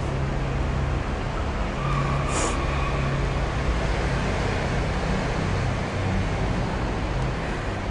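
Steady low hum inside a parked car's cabin, with its engine idling and air conditioning running. A brief hiss comes about two and a half seconds in.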